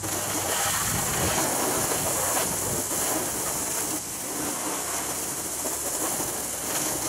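Garden hose spraying water onto a car's hood and windshield, rinsing off soap: a steady hissing spray.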